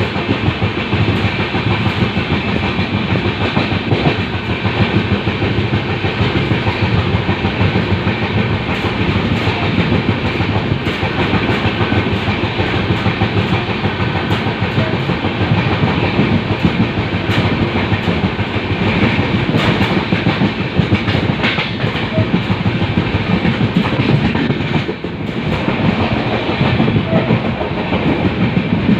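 LHB passenger coach running along the track at speed: a steady rail rumble with a constant scatter of wheel clicks over rail joints. It dips briefly near the end.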